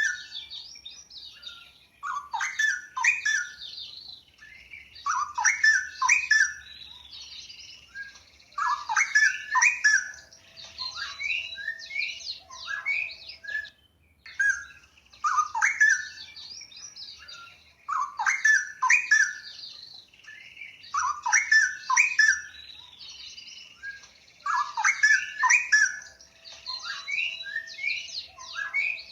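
Straw-headed bulbul (cucak rowo) singing: loud, melodious warbling phrases of quick rising and falling notes, each lasting a second or two and repeated every few seconds.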